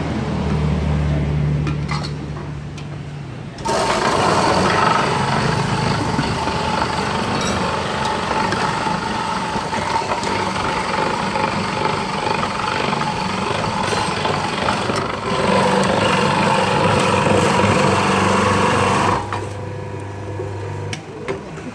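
Electric ice-shaving machine: its motor hums, then about four seconds in it starts shaving a block of ice, a loud steady grinding noise that lasts about fifteen seconds and then drops back to the motor's hum.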